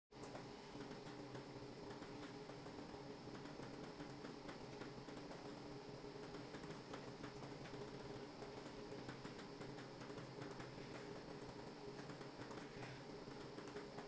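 Faint steady mechanical hum with many small, quick, irregular clicks scattered through it.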